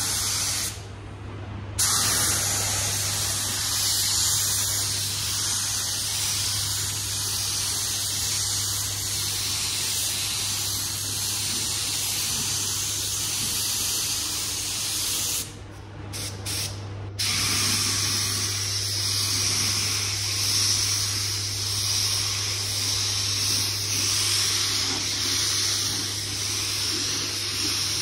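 A gravity-feed spray gun hisses as compressed air atomises red 2K paint onto a car panel. The hiss cuts out briefly about a second in and again, with a couple of short spurts, just past the middle, as the trigger is released between passes. A steady low hum runs underneath.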